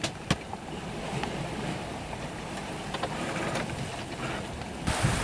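Sailboat under way: a low steady rumble of water and hull with a few sharp clicks near the start. About five seconds in, wind noise on the microphone suddenly comes up.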